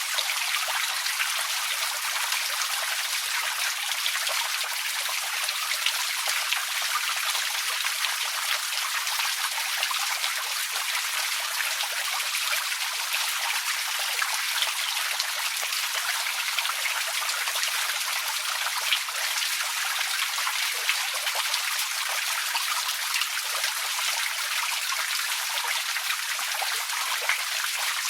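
Outdoor water fountain: water falling and splashing steadily, an even hiss with small irregular splashes and no change in level.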